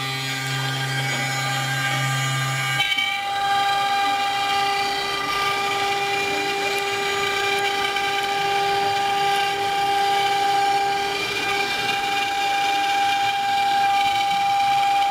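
CNC router spindle running at high speed while its small end mill cuts a white sheet: a steady whine of several held tones over a hiss of cutting. The tones shift abruptly about three seconds in.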